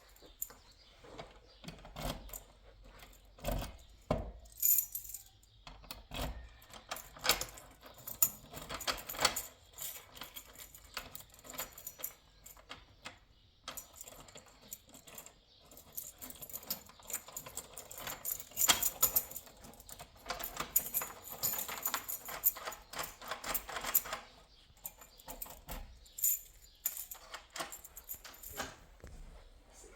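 Irregular metallic clicking, tapping and jangling of small hard objects being handled, busiest in a run of rattling about two-thirds of the way through.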